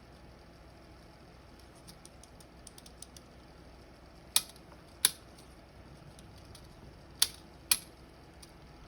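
Number cards of a vintage Sears 'Tradition' Model 7132 flip clock flipping over as the running clock turns its numbers. A few light ticks come first, then four sharp clacks, in two pairs spaced under a second apart.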